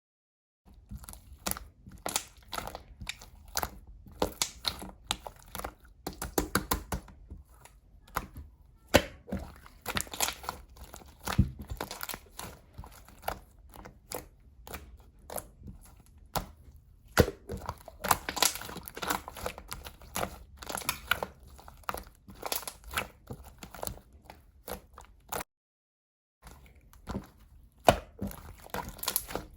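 Slime being squeezed, stretched and poked by hand, making rapid irregular clicking and crackling pops, with a pause of about a second near the end.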